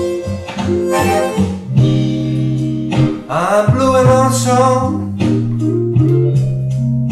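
Slow blues: a chromatic harmonica played cupped against a bullet microphone over a backing band with guitar. The harmonica breaks off about halfway through while the guitar carries on.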